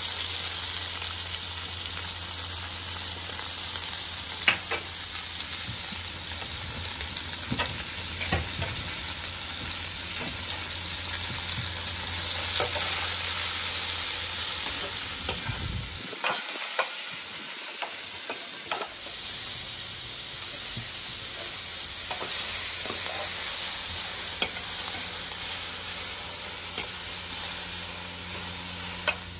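Sliced onions sizzling in hot oil with cumin seeds in a wok, frying at the start of a masala. A metal slotted spoon stirs them, scraping and clicking against the pan now and then.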